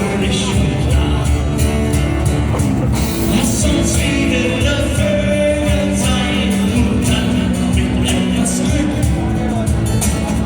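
A live band playing a rock song, with a steady drum beat and singing.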